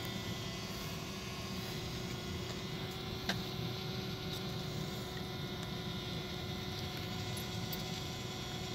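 DJI Mavic drone hovering: a steady propeller hum made of several held tones, over a low rumble. One brief click about three seconds in.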